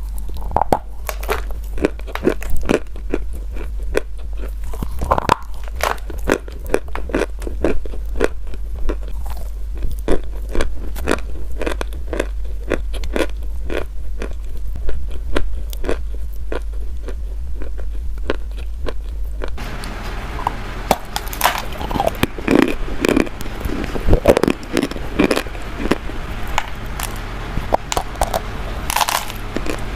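Close-up biting and crunching of chalk, a steady run of sharp crunches with chewing between them. About two-thirds of the way in, a hiss of background noise comes up under the crunches.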